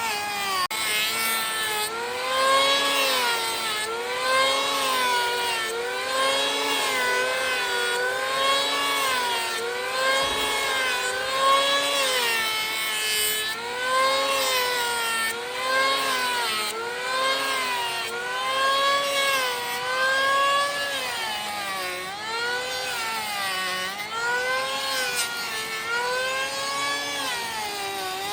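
A power tool's motor running while working wood, its pitch dipping and recovering in a steady rhythm about every two seconds as it takes and sheds load with each pass.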